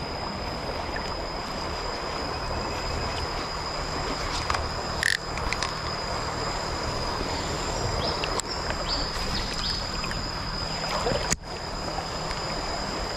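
A swollen stream rushing steadily, its water running high and strong, with a few brief clicks.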